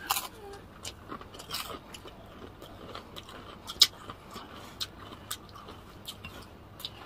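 People eating crispy fried chicken and rice by hand: chewing with scattered sharp clicks and crackles, the loudest a little under four seconds in.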